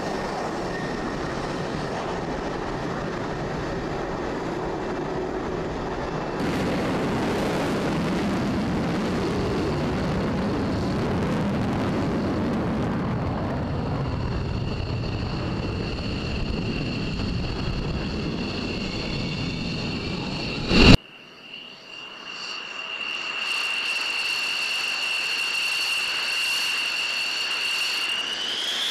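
Fighter jet engines running at taxi power, a steady loud rush of jet noise. About two-thirds of the way through, a sudden loud thump cuts to a quieter shot, where a high-pitched turbine whine holds steady and then rises just before the end as a taxiing jet's engine spools up.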